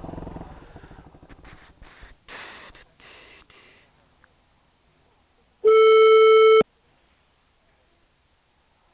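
Telephone ringback tone of an outgoing call: one steady one-second beep about halfway through, repeating after a long pause. Before it, a low engine-and-wind rumble fades away over the first few seconds.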